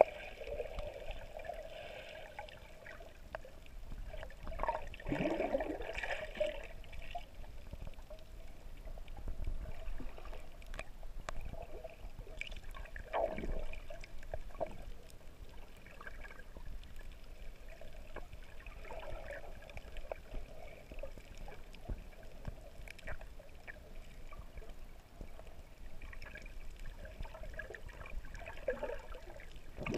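Muffled water sloshing and gurgling around a camera held underwater, with a few louder swells.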